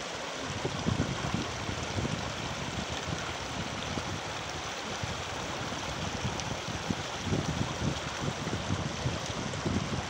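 Shallow mountain stream running fast over stones, a steady splashing hiss, with low rumbles of wind on the microphone now and then.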